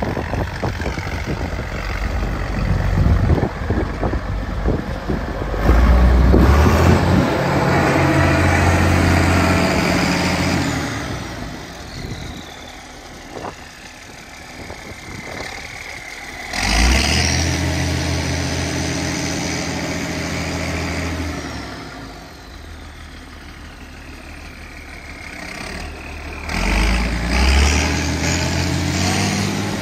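Massey Ferguson 1105 tractor's turbocharged six-cylinder diesel running while the tractor drives, revved up three times and eased back down in between. High whistles fall in pitch as the engine slows.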